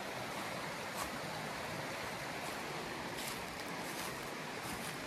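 Steady rushing of a creek's flowing water, with a few faint crunches of footsteps on dry leaf litter.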